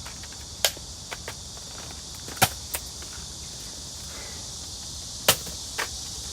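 Steady high chirring of summer insects, crickets or similar, with several short sharp clicks and knocks over it, the loudest about two and a half and five and a half seconds in.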